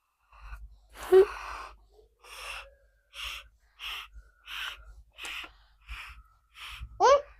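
Repeated short, hissy puffs of breath, about one and a half a second, blowing air into slime to inflate a slime bubble. A brief rising squeak comes near the end.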